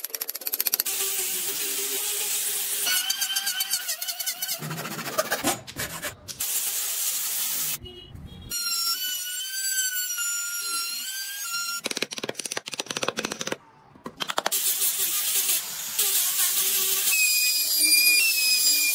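Electric trim router carving into solid wood: a steady high motor whine while cutting, heard twice in separate clips. Between them, short cuts of loud rasping cutting noise with rapid clicking from other woodworking tools.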